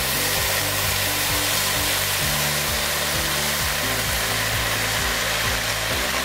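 Broth poured from a carton into a hot pot of sautéed lentils and vegetables: a steady, unbroken rush of pouring liquid, over soft background music.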